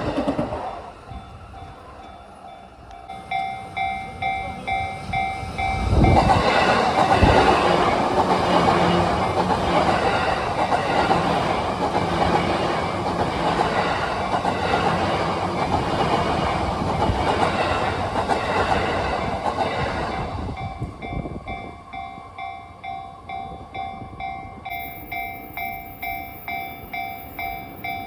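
Japanese level-crossing alarm ringing in a steady rhythm of about two strikes a second. About six seconds in, a Yamanote Line E235-series electric train arrives with a loud rush and passes for roughly fourteen seconds, drowning out the alarm. The alarm rings on after the train has gone.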